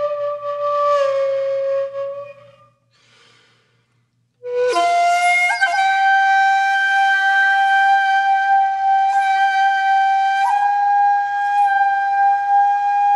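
Background music: a single instrument playing slow, long held notes. One note fades out about two seconds in. After a short near-silent gap, a long held note comes in and is sustained, stepping up slightly in pitch about ten seconds in.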